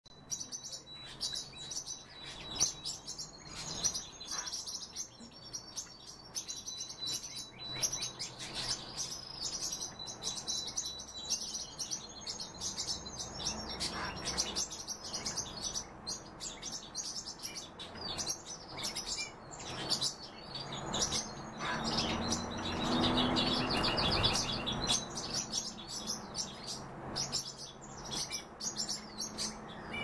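Many cage birds, canaries among them, chirping and calling together in a steady mixed chatter of short high notes, with a busier run of rapid calls about two-thirds of the way through.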